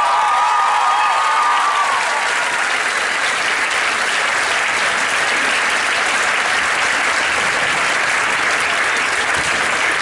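Audience applauding steadily, with a high wavering tone over the first two seconds.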